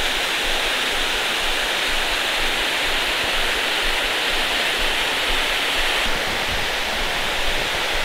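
Mountain stream rushing and splashing down small cascades over boulders, a steady rush of water.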